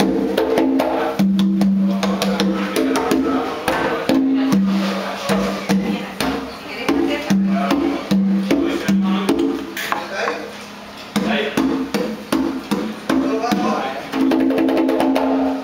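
Music playing: pitched melody notes over sharp, wood-block-like percussion clicks and knocks. It cuts off abruptly at the end.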